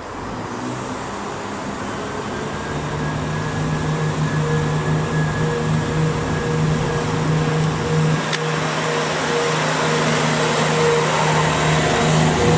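A train drawing nearer, growing steadily louder: a rushing hiss with steady humming tones held over it. A single sharp click about eight seconds in.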